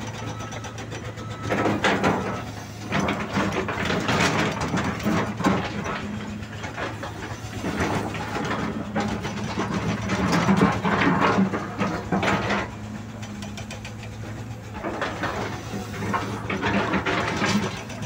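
Diesel engines of heavy tracked earthmoving machines running steadily, with repeated bursts of metallic clanking and squealing from the machines at work.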